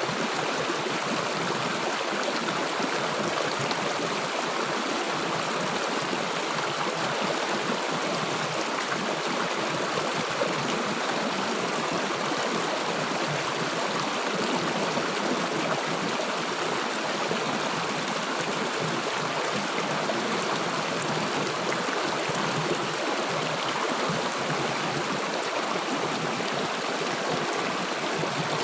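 Stream or river water rushing and gurgling over rocks, a steady, even flow.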